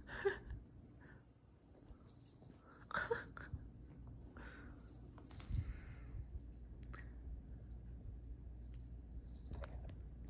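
Small jingle bell on a kitten's collar tinkling on and off as the kitten moves, a thin high ringing that stops and starts. A couple of brief louder sounds come at the very start and about three seconds in.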